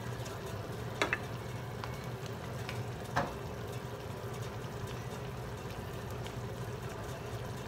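Sauce simmering gently in a skillet over low heat, over a steady low hum, with two light clicks about one and three seconds in.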